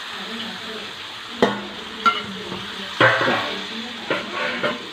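Chicken curry sizzling in a large steel pot as water is poured in, while a metal spatula stirs it and clacks against the pot about five times.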